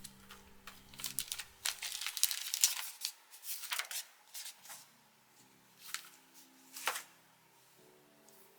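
Figure packaging being torn and crinkled by hand: a dense run of sharp crackles for a few seconds, then a couple of single crinkles.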